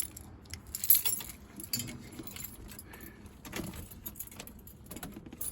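Keys jangling on a key ring, with several light metallic jingles and clicks, as the key goes into the car's ignition.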